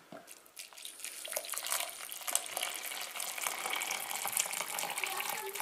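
Boiling water poured from an electric kettle into a plastic measuring jug, a steady splashing stream that starts about a second in.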